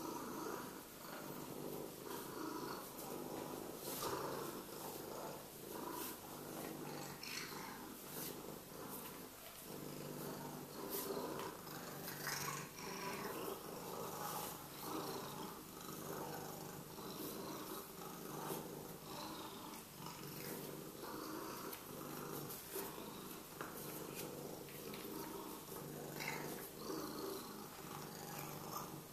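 Sphynx cat purring steadily and continuously, close up.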